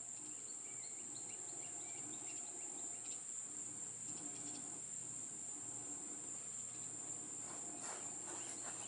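Steady high-pitched insect trilling, with a few faint, short bird chirps over it.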